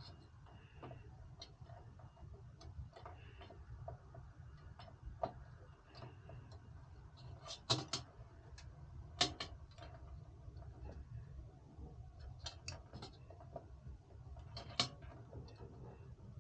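Small clicks and taps of computer hardware being handled during a CPU cooler installation, with a few sharper knocks around the middle and near the end, over a low steady hum.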